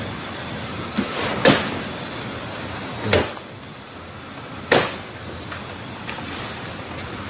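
Sharp knocks or thuds of unknown origin: two close together about a second in, a duller one around three seconds and another near five seconds. Behind them is a steady high drone of night insects.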